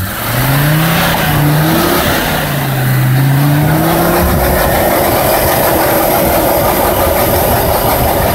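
Mercedes-Benz G-Class off-roader's engine revving hard under load while climbing a steep, rutted snowy slope, its pitch rising and falling with the throttle over a steady rushing noise. The revs jump up sharply right at the start.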